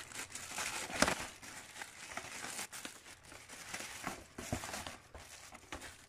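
Crinkling and rustling of something being handled, with scattered small clicks and a sharper knock about a second in.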